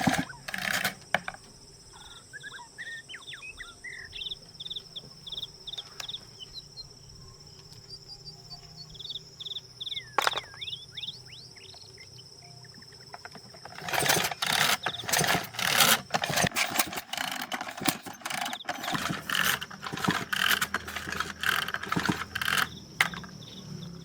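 Insects buzzing steadily, with a cricket chirping in a quick pulsing rhythm and a few short bird calls. About halfway through, a dense run of loud clicks and knocks starts, goes on for about nine seconds and then stops.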